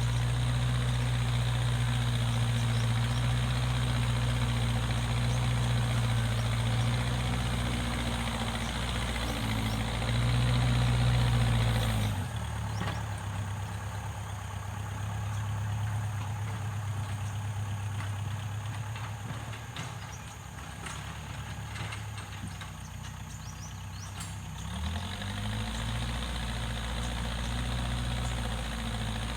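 Backhoe loader's diesel engine running steadily. About twelve seconds in it drops suddenly to a lower, quieter note, and near the end it rises again to the higher note.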